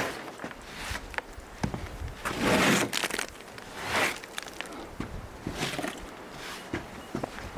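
Footsteps and scuffing handling noises, with a louder scraping rush about two and a half seconds in and another near four seconds.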